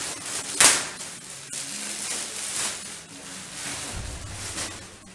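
Clear plastic wrap crackling and rustling as it is torn and pulled off a rubber bumper plate in its cardboard box. There is a sharp snap of the film about two-thirds of a second in, and smaller crinkles follow.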